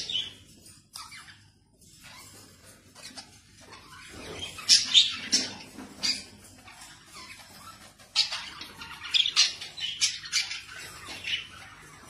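Budgerigars calling in a cage, in short sharp high-pitched calls that come in two spells: one about four seconds in, and a longer one from about eight seconds.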